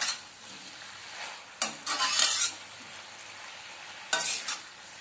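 Steel spatula stirring vegetables and paneer in a metal wok over a steady sizzle of frying, with three loud scraping strokes against the pan: one at the start, one in the middle lasting about a second, and a short one near the end.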